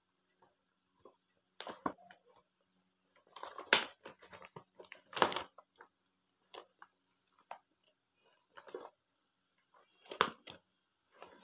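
Clear plastic toy packaging crinkling and rustling in bursts as it is handled and turned over, with the loudest crackles about four and five seconds in and again near the end.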